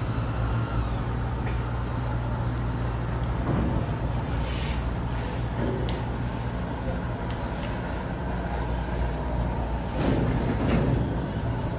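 Steady low hum of a docked riverboat's diesel machinery running, even and unbroken, with a little louder noise about ten seconds in.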